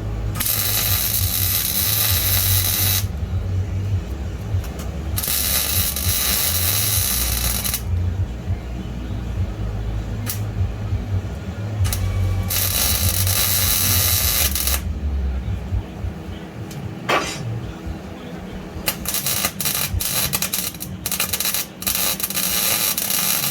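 Electric arc welder laying welds on steel subframe connectors under a car: three steady crackling, hissing runs of a few seconds each, then a string of short tack-weld crackles near the end, over a steady low hum.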